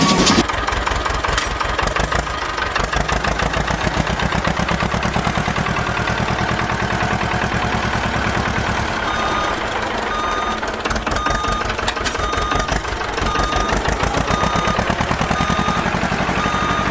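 A heavy-vehicle engine running with a fast, even chugging rhythm. About halfway through, a reversing beeper starts and repeats roughly twice a second.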